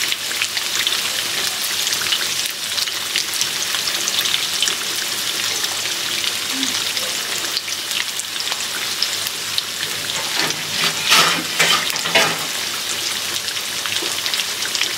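Soy-sauce-marinated beef slices frying in a wok, with a steady sizzle and crackle. A few louder clatters come about eleven seconds in.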